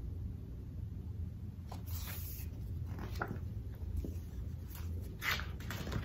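Paper rustling and scraping as the pages of a large hardcover picture book are handled and turned, a few short strokes that come more often and louder toward the end, over a low steady hum.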